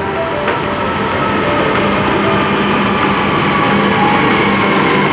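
Train running: a steady rumble and rush of noise with a faint whine drifting slightly in pitch.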